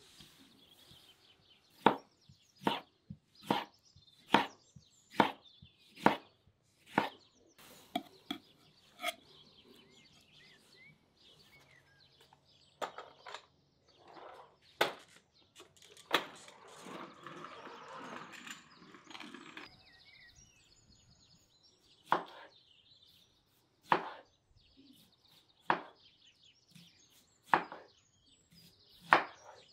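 Knife slicing tomatoes on a clay plate, each stroke ending in a sharp knock, about one cut a second. Midway comes a few seconds of rolling noise from a child's kick scooter on concrete, then slower knife cuts about every two seconds. Birds chirp faintly.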